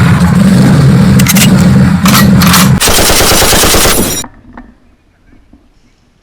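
Very loud rapid automatic fire: one continuous burst of about four seconds with a steady hum beneath the fast shots, starting abruptly and cutting off sharply.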